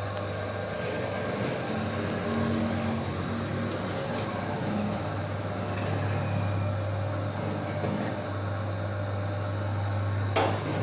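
Coffee roasting machine (4–5 kg drum roaster) running with a steady motor hum. There is one sharp click near the end.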